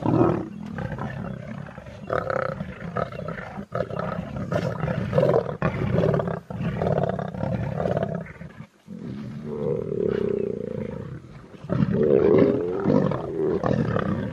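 Male lions growling over a kill while feeding, a string of separate rough growls with one held call about two-thirds of the way through and the loudest growling near the end.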